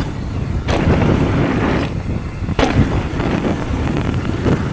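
Wind buffeting the microphone while a Stevens E-Inception e-mountain bike rolls down a flow trail, the bike rattling over the ground, with two sharp knocks, one under a second in and one past the middle.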